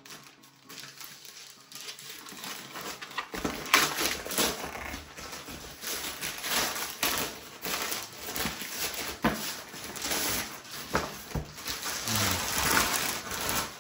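Packaging being handled: irregular rustling with scattered knocks and scrapes, starting a few seconds in.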